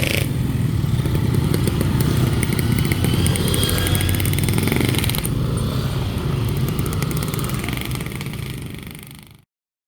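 Steady low rumble and clatter of vehicles passing at a railway level crossing, fading over the last second and then cutting off.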